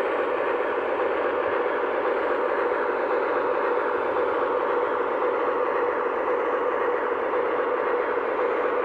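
Sampled diesel engine sound from an MTH O-gauge Alco RS-11 model locomotive's Proto-Sound 3 speaker, running steadily while the model moves slowly along three-rail track.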